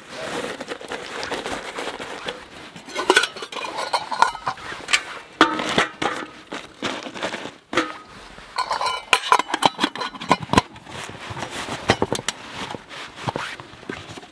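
Solo Stove Titan stainless steel twig stove and pot being packed away: repeated metal clinks as the parts knock together, over the rustle of a nylon stuff sack being pulled on and handled.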